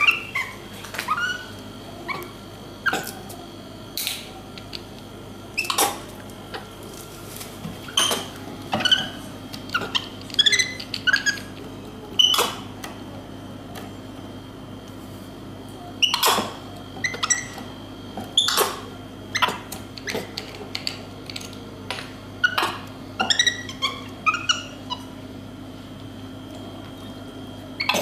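A monkey's short, squeaky calls, some in quick falling runs, scattered among irregular sharp clicks and knocks, over a steady low hum.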